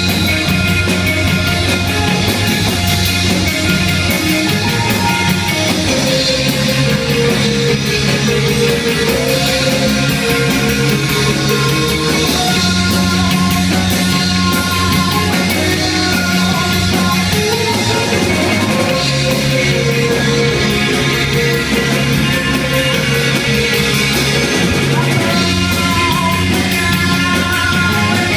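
Indie rock band playing live: electric guitars, keyboard, bass and drums together in one continuous, loud song, with the chords changing every few seconds.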